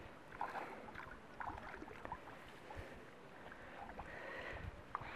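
Faint, irregular splashing and lapping of lake water, over a low rumble of wind on the microphone.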